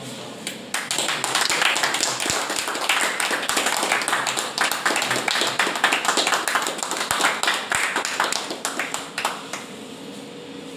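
A group of people clapping their hands, dense and uneven, starting about a second in and dying away near the end.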